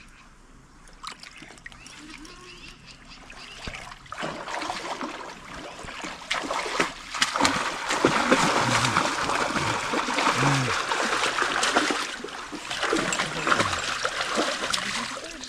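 Hooked sockeye salmon thrashing and splashing at the river surface as it is brought to a landing net. The splashing builds up about four seconds in and is loudest in the middle, an irregular run of slaps and spatters.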